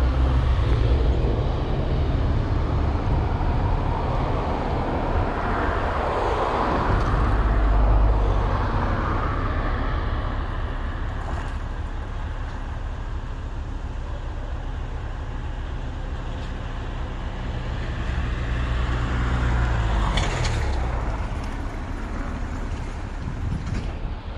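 Road traffic passing close by: a steady rumble of vehicles, swelling as vehicles go past about six seconds in and again around twenty seconds, the second with a falling engine note.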